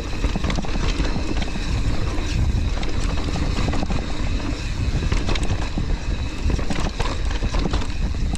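Mountain bike clattering down a rough, rocky trail: a continuous rumble of tyres and wind buffeting the action camera's microphone, broken by many sharp knocks and rattles from the bike over rocks and roots.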